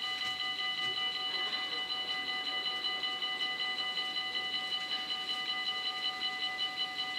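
Dutch automatic level-crossing (AHOB) warning bells ringing continuously with a rapid, pulsing ring several strokes a second: the signal that the crossing is closing and the half-barriers are coming down for an approaching train.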